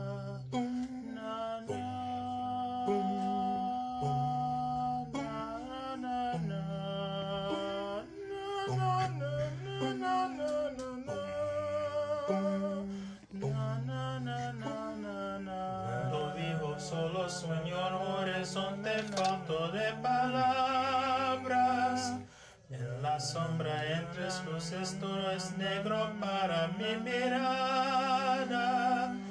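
One man's voice multitracked into a layered a cappella choir: sustained wordless chords over a stepping sung bass line, with the upper voices singing with vibrato from about halfway through and a short break a little later.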